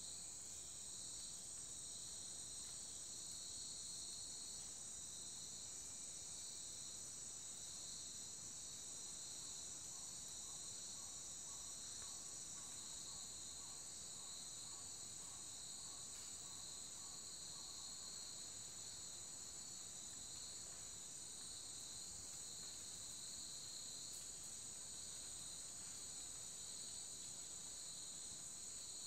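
Steady, high-pitched chorus of tropical forest insects, with a faint pulsing in its lower band.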